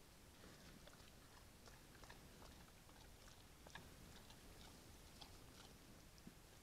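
Brown bear chewing and crunching food close to the trail camera: faint, irregular crunches over a steady hiss.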